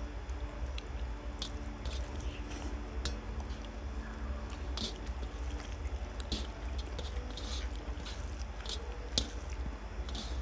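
Close-up eating sounds of people eating rice and curry with their fingers: irregular wet smacks, squelches and small clicks of chewing and of fingers mixing rice on steel plates, over a steady low hum.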